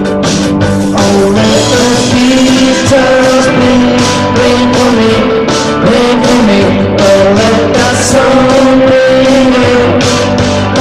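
Live rock and roll music: two men singing over an electric guitar and a backing with a steady beat.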